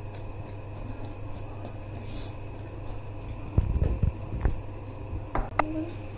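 Marinated paneer cubes being tossed in a dish to coat them with spices: a few soft thuds and light knocks, the first about three and a half seconds in, then a sharp click near the end, over a steady low hum.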